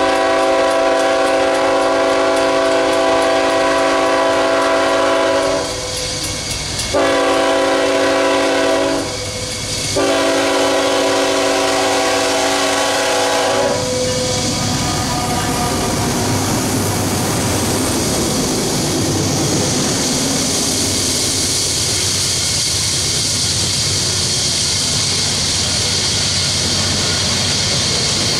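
Nathan K5HL five-chime air horn on a CSX ET44AH locomotive sounding for a grade crossing in three long blasts, the first already sounding and the last ending about 14 seconds in. Then two GE diesel locomotives pass working in Notch 8, pulling a loaded coal train up a steep grade, followed by coal hoppers rolling by with a steady wheel clatter.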